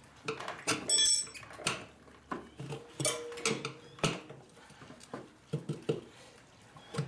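Steel tire irons clinking, knocking and scraping against a dirt-bike wheel rim in irregular strokes as the tire bead is pried off, one knock about a second in ringing briefly.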